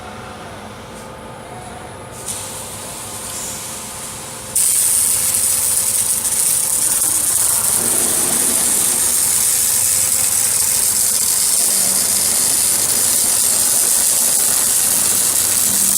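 Robot welding arc striking about four and a half seconds in and then running as a loud, steady hiss, after a softer hiss and a low machine hum.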